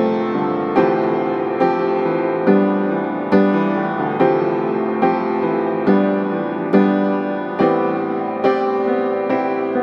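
Background piano music, a new chord struck evenly a little faster than once a second, each one ringing out before the next.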